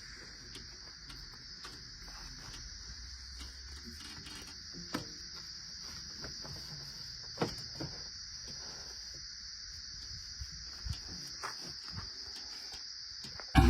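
Crickets chirring, a steady high hiss, with a few faint clicks. Right at the end, loud machine engine noise cuts in abruptly.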